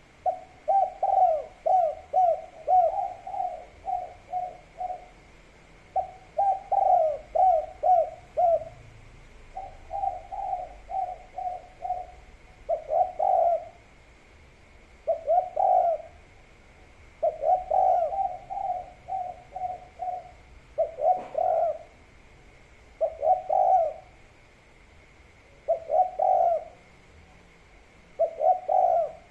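Spotted dove (tekukur/derkuku) cooing over and over in its 'kuk 3' song: runs of quick, low coos grouped into phrases, with pauses of one to two seconds between them. A faint steady high hum lies underneath.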